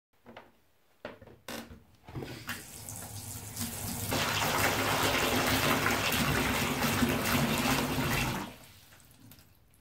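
Bath tap running into a bathtub, the gushing flow building over a couple of seconds and stopping about three-quarters of the way through. A few light clicks come before the water starts.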